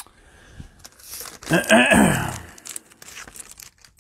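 Plastic wrapping of trading-card cello packs crinkling and rustling as it is handled, loudest around the middle, with a brief falling murmur of a voice mixed in there.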